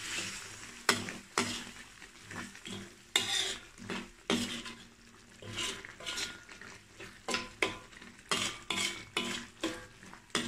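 Metal ladle stirring thick sambal in a metal wok, scraping and knocking against the pan in about a dozen irregular strokes, over a faint sizzle of the simmering sauce.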